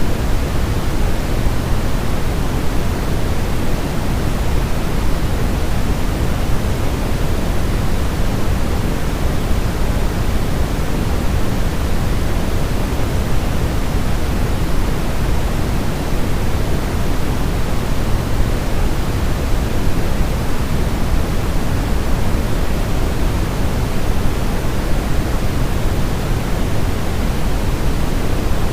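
Steady pink noise, a constant hiss with more weight in the low end than in the highs and no change in level.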